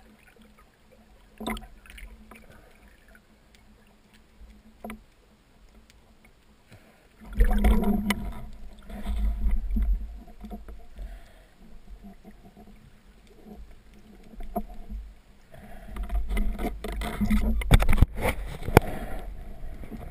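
Water sloshing and splashing around the microphone in two spells of a few seconds each, with scattered sharp knocks and a faint steady hum.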